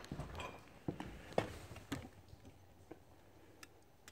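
Footsteps on the metal steps of a stopped escalator, a few steps about half a second apart that die away after about two seconds into a couple of faint ticks.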